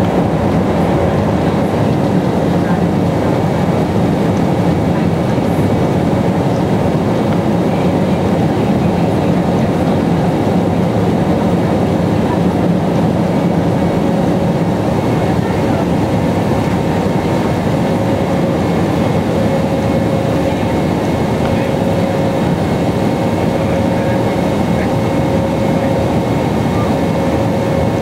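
Cabin noise of an Airbus A321 climbing after takeoff, heard from a window seat over the wing: a steady, loud rush of jet engine and airflow noise with a few faint steady tones in it.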